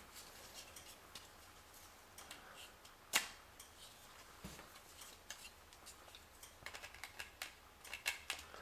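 Faint clicks and knocks of 3D-printed plastic quadcopter arms being pushed into the corners of the frame body. One sharper click comes about three seconds in, and a run of small clicks near the end.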